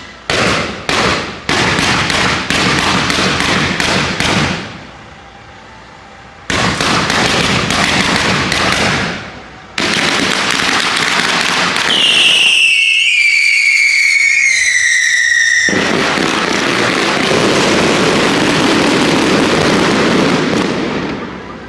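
Daytime fireworks fired from a flatbed trailer: rapid volleys of cracks and bangs, with a lull of about two seconds early on. A little past halfway comes a run of shrill whistling fireworks, their whistles sliding down in pitch, followed by a long, dense barrage of crackling bangs.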